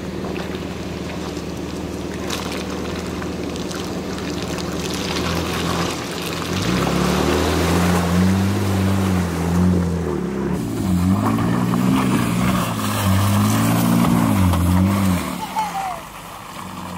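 Jeep Grand Cherokee engine pulling steadily, then revving up and down again and again from about six seconds in as the SUV pushes through a deep water-filled hole, with water splashing around it.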